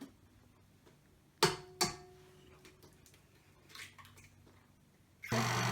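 Two sharp clinks on a bowl about a second and a half in, each ringing briefly. Near the end, an electric mixer switches on suddenly and runs with a steady hum.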